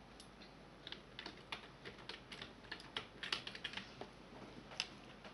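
Computer keyboard being typed on: a faint, irregular run of key clicks starting about a second in.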